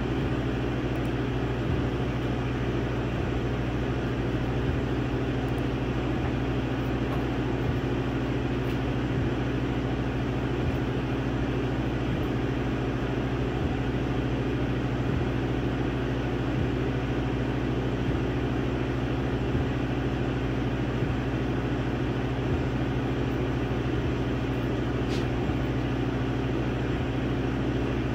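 Laser engraver running as it burns a design into a wooden board: a steady machine hum and whir, with faint irregular low ticks.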